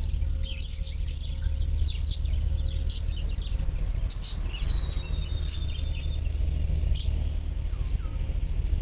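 Several birds chirping and singing in quick short calls, with a long thin whistled note about four seconds in, over a steady low rumble.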